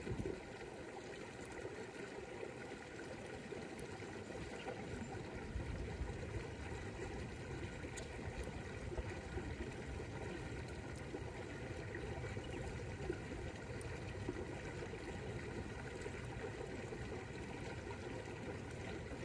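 Steady ambience of moving water with a low rush, broken by a few faint clicks.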